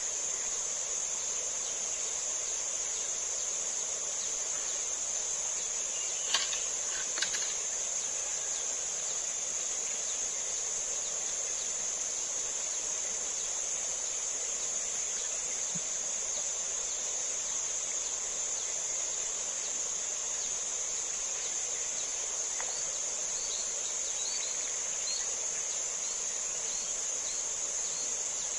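Insects droning in a steady, high-pitched chorus. Two short, sharp clicks stand out about six and seven seconds in.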